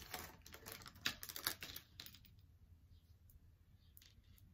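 Small clear plastic jewellery bag crinkling in the hands as a necklace is taken out of it: a run of light crackles that stops about two seconds in.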